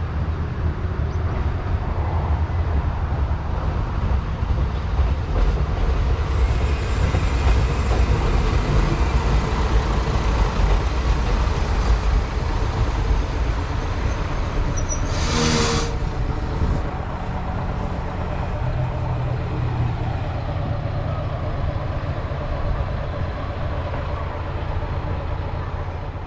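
Vehicle running on a road: a steady low rumble of engine and road noise, with a brief loud hiss about halfway through.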